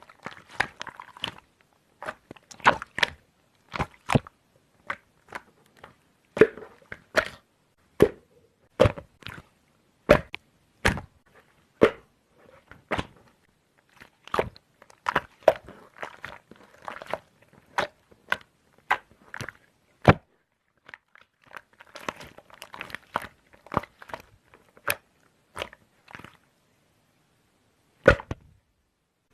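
Slime being squeezed and poked by hand: an irregular run of sharp wet clicks and pops, several a second at times, with short pauses and a longer gap near the end before one last pop.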